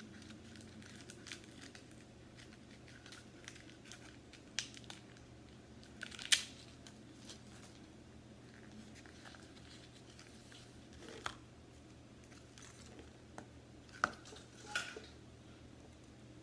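Gold rhinestone "bling wrap" ribbon and its packaging being handled and unrolled: faint scattered rustles and light clicks, with a few sharper ticks.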